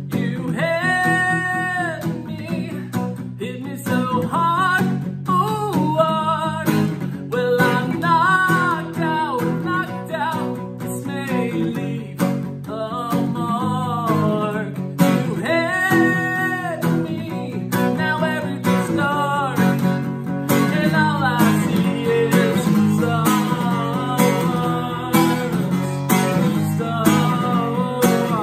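A man singing with his own strummed acoustic guitar.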